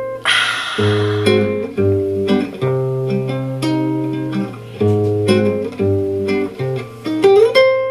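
Instrumental break of a Japanese pop song, strummed acoustic guitar over a bass line, played back through a Melody H88 KT88 valve amplifier and loudspeakers. The recording is loud enough that it distorts in places.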